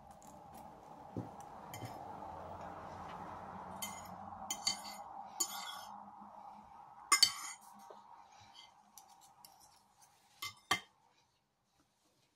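Metal fork and knife clinking and scraping on a ceramic plate in a handful of separate strokes, the loudest about seven seconds in. Under them runs a faint steady hum that fades out about eight seconds in.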